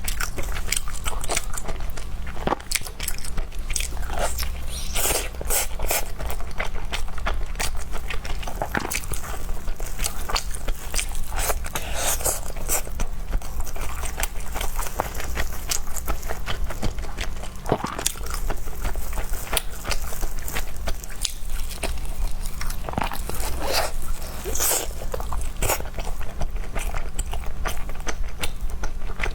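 Close-miked eating sounds: a person biting and chewing food, with many short irregular mouth clicks over a steady low hum.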